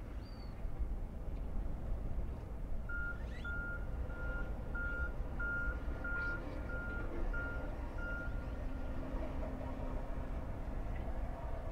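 Vehicle backup alarm beeping: about ten evenly spaced beeps at one pitch, roughly one and a half a second, starting about three seconds in and fading out a little past eight seconds. A steady low rumble runs underneath.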